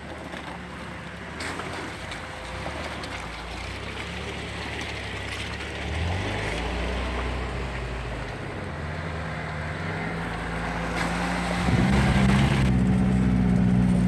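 Off-road 4x4 engines working slowly through deep mud, revving up and easing off. About twelve seconds in, a louder, steadier engine comes in.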